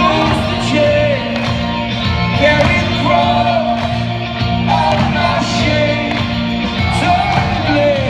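Rock band playing live: a male lead singer sings over electric guitar, bass and drums, heard from among the crowd in an arena.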